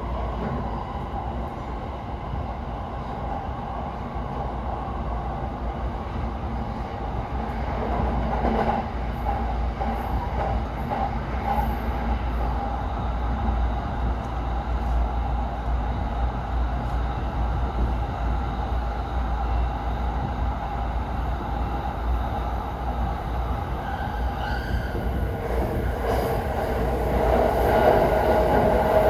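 E231 series 1000 commuter train running, heard from inside the passenger car: a steady running rumble that grows louder near the end.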